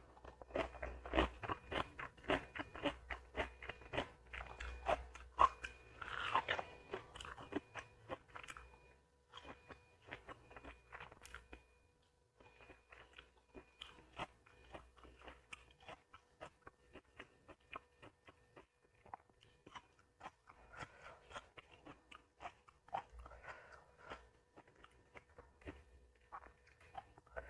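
Close-miked mouth sounds of eating: crisp crunching and chewing of food, dense and louder for the first several seconds, then sparser, quieter chewing.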